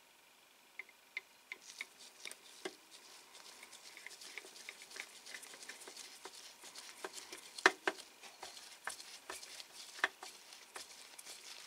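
Small screwdriver driving screws into a plastic scale-model car body, with many small clicks and the rustle of gloved hands handling the plastic parts; two sharper clicks about two-thirds in and near the end.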